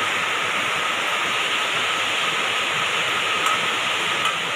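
Steady rushing background noise with a faint constant high whine.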